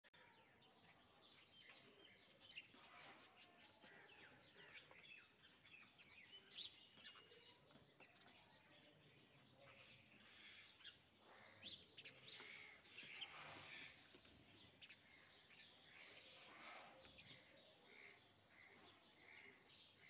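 Faint chirping of small birds: many short, scattered chirps and quick high notes overlapping one another.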